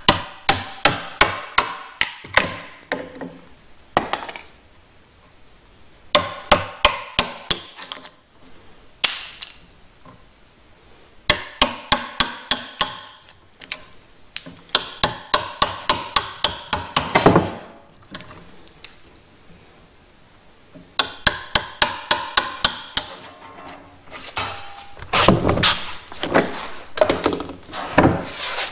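Hammering on cedar timber: quick runs of sharp blows, about four a second, in six bursts separated by pauses of a few seconds, with a couple of single knocks between.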